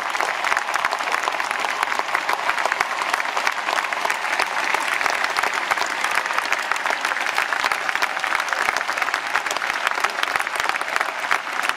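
Large concert audience applauding: dense, sustained clapping from thousands of hands.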